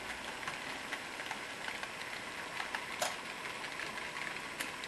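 HO scale model freight train's wagons rolling past on the track: a steady rolling hiss with many light, irregular wheel clicks, and one sharper click about three seconds in.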